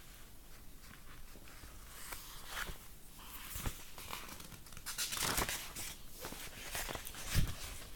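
Paper rustling as the pages of a hardcover picture book are handled and turned, in a few short bursts, loudest about five seconds in.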